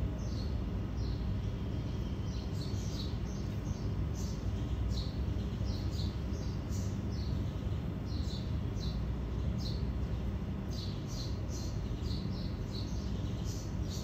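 Honeybee swarm clustered on a branch, giving a steady low hum, with small birds chirping over it in short high notes that come in quick runs throughout.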